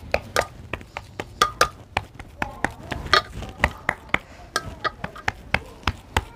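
Hands patting and pressing warm besan barfi mixture flat in a steel plate: an irregular run of sharp taps and clicks, about four a second, with small metallic clinks and pings as bangles and fingers knock the steel plate.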